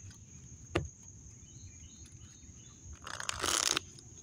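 A tarot deck being shuffled by hand: a single click about a second in, then a riffle of the cards near the end, the loudest sound here. A steady high insect buzz runs underneath.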